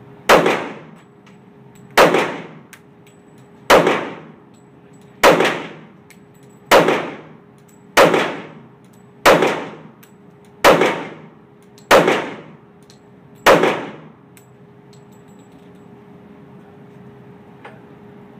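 Kimber pistol fired ten times in slow aimed shots about a second and a half apart, each shot echoing through an indoor range. A steady hum runs underneath.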